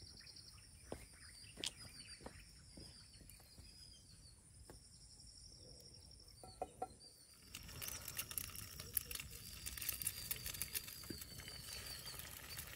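Egg frying in a small pan over a campfire: a dense, even crackling sizzle that starts abruptly about halfway through. Before it there are only scattered small clicks and faint high chirping.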